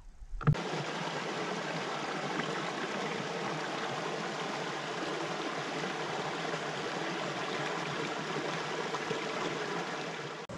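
Water running steadily over a small set of rocky chutes, a shallow stream cascading into the lake. It cuts in about half a second in and drops away just before the end.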